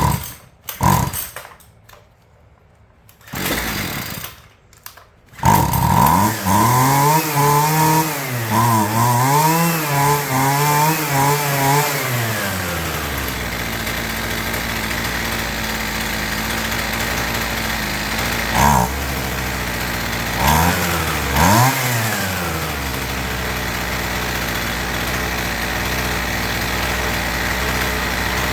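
Husqvarna 128LD string trimmer's small two-stroke engine: a few short bursts, then it catches about five seconds in, revs unevenly up and down for several seconds, and settles to a steady idle with three brief throttle blips. Its newly fitted carburetor is still untuned and it runs with no attachment on, so it bogs somewhat.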